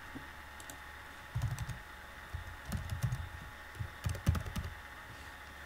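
Typing on a computer keyboard: several short runs of key clicks over about four seconds, with a faint steady hum underneath.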